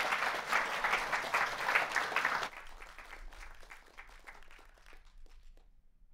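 Congregation applauding, a dense patter of many hands. About two and a half seconds in it drops off suddenly to a few scattered claps that die away.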